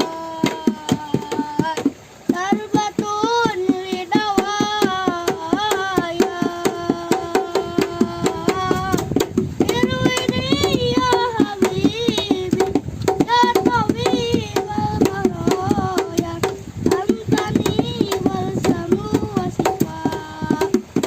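A child singing a melodious, heavily ornamented song with wavering, gliding notes in Arabic style, over a steady, fast beat of hand percussion.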